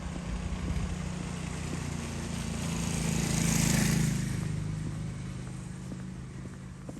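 A motor vehicle passing by: its engine hum and tyre hiss grow louder, peak about halfway through, then fade away.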